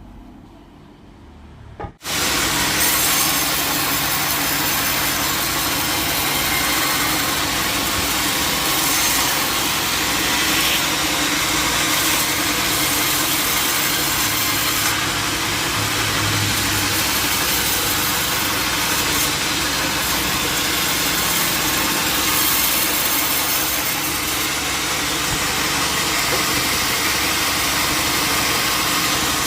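Band saw mill cutting through a jackfruit log: after a quieter machine hum, a loud, steady sawing noise starts suddenly about two seconds in and runs on evenly.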